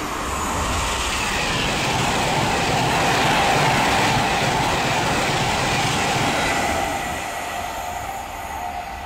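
Class 390 Pendolino electric express train passing at speed: a rush of wheel and air noise that swells to its loudest about halfway through, then fades away near the end.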